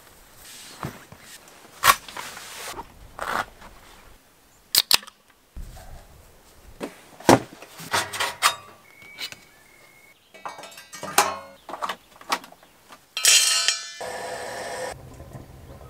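A quick series of separate handling sounds from camping gear cut one after another: knocks, clicks, rustles and metal clanks from a small metal wood stove and its fittings, with a louder hiss near the end.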